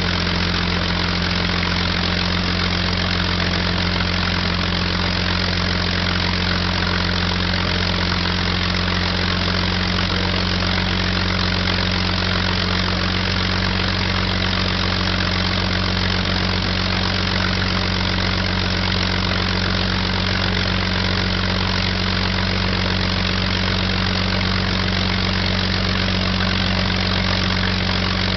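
P-51 Mustang's Merlin V12 aero engine idling steadily with the propeller turning, an even low-pitched running note that holds constant throughout.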